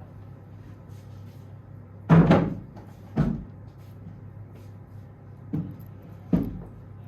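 Four short knocks, the first and loudest about two seconds in, the others spread over the following four seconds, over a low steady hum.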